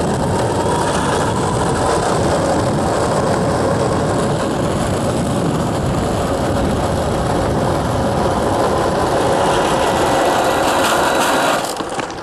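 Electric skateboard motor whirring steadily under power, cutting off suddenly near the end.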